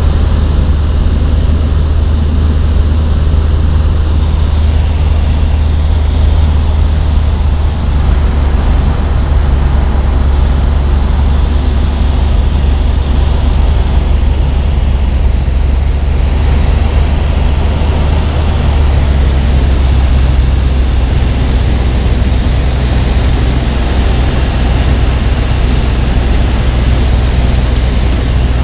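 Kitfox light aircraft's engine and propeller droning steadily, heard inside the cockpit with a rush of wind noise over it. The drone drops a little in pitch about two-thirds of the way through, as the plane comes down toward the landing strip.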